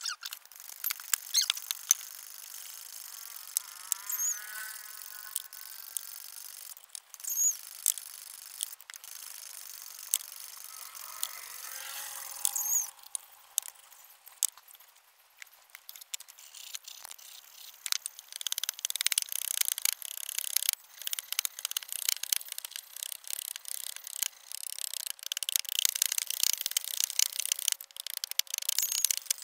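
Hand filing of a copper piece held in a clamp: rapid, uneven rasping strokes that take over in the last third. Before that, scattered light clicks and taps, and two short wavering squeals in the first half.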